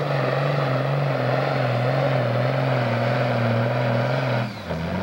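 John Deere farm tractor's diesel engine running hard and steady under heavy load while dragging a pulling sled. About four and a half seconds in, the engine note drops away sharply.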